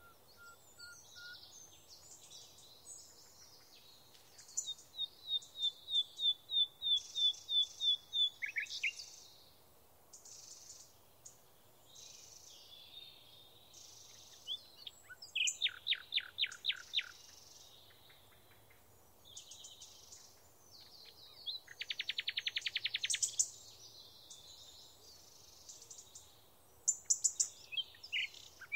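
Songbirds singing: a run of repeated high chirps, then a burst of sweeping notes and a fast trill lasting about two seconds, over faint outdoor background.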